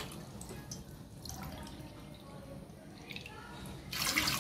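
Water poured from a glass bowl into an aluminium pot already holding water: faint drips and trickles, then a short splashing pour about four seconds in.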